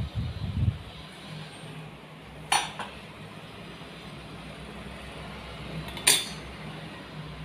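Two sharp clinks of steel kitchenware, about two and a half and six seconds in, over a low steady hum; a few dull knocks at the start.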